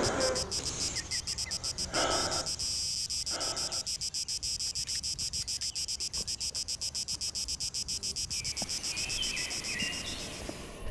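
Crickets chirping in a steady, even pulse of several beats a second, with two short noisy bursts about two and three seconds in.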